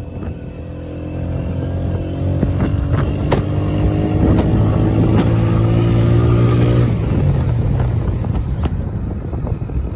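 125cc motorcycle engine running on the move, growing louder and pulling steadily for several seconds, then easing off about seven seconds in as its pitch drops.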